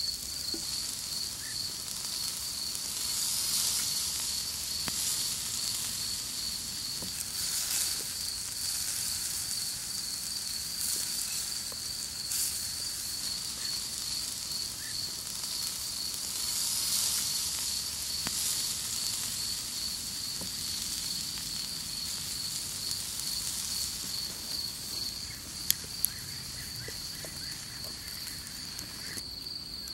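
Mici sizzling on a wire grill over charcoal embers: a high hiss that swells and fades, with scattered crackles and two sharp pops near the end. An insect's steady, pulsing high trill runs underneath.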